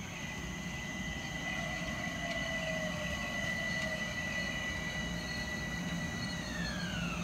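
Metro-North Bombardier M7 electric multiple unit pulling into the station: a steady high electric whine over a low track rumble, growing louder as it nears, with the whine falling in pitch near the end as the train slows.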